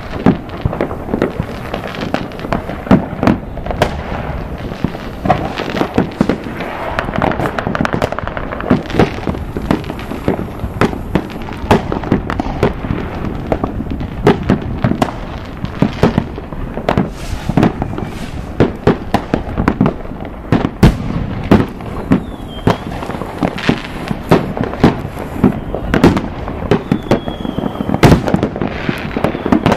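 Many fireworks and firecrackers going off at once: a dense, continuous crackle of overlapping bangs and pops, several every second. There are a couple of short whistles in the second half.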